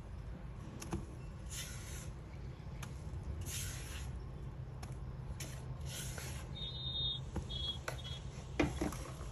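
Flour being added to cake batter in a plastic bowl, with soft rustling hisses that come and go every second or so over a steady low hum. A few short high chirps sound about seven seconds in, and a couple of light clicks near the end.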